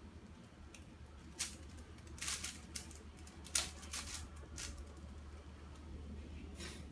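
Plastic twisty puzzle being turned by hand: scattered quick clicks and clacks of the layers, over a low steady hum.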